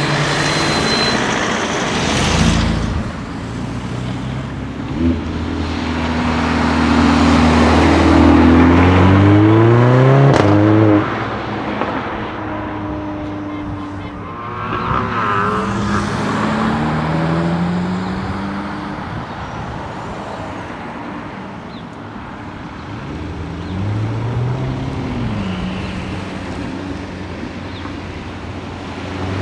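Several sports cars accelerating away one after another, starting with a Honda Civic Type R, with a Mercedes-AMG A45 passing midway. Each turbocharged four-cylinder revs up in rising pitch and drops at each upshift. The loudest pull comes from about six to eleven seconds in.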